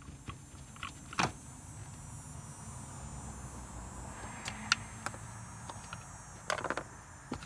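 Scattered plastic clicks and knocks as hose connectors and retaining clips on a BMW coolant expansion tank are worked loose by hand and with a pick tool. The loudest knock comes about a second in, and a quick cluster of clicks near the end, over a faint steady low hum.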